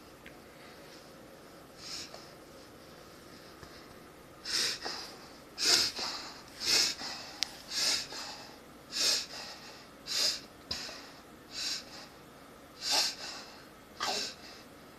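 German Shepherd making repeated noisy breaths through the nose, which the owner takes for reverse sneezing. One faint breath comes about two seconds in, then from a few seconds in a run of about ten loud ones, roughly one a second.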